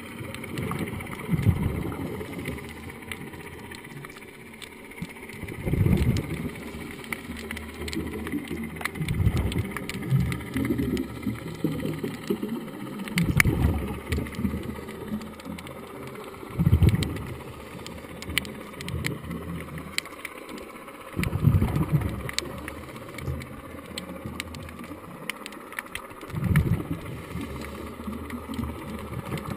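Muffled underwater sound heard through a GoPro housing: a scuba diver's regulator exhaust bubbles rumbling in surges every four to five seconds, over a steady low rumble with scattered faint clicks.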